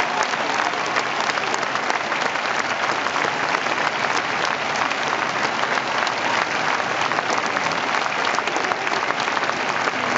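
Audience applauding steadily, a dense mass of many hands clapping at an even level.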